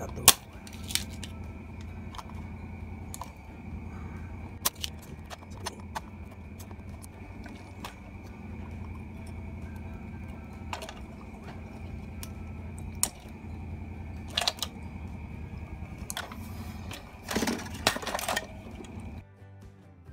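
Desoldering tools working a solder joint on a circuit board: a string of sharp clicks and snaps, the loudest about a third of a second in and a cluster near the end. Under them runs a steady low hum with a faint high steady whine, which cuts off shortly before the end.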